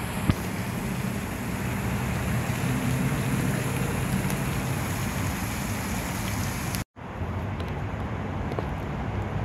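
Steady low rumble of road traffic mixed with wind noise, with one small click near the start. The sound drops out completely for an instant about seven seconds in, then resumes.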